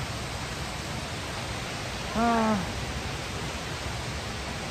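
Steady rush of a waterfall pouring into its plunge pool.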